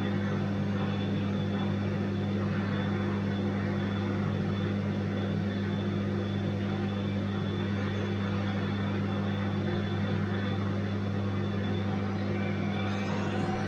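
Bosch washing machine running with a steady low hum from its motor and drum. Near the end a rising whine begins as the drum speeds up.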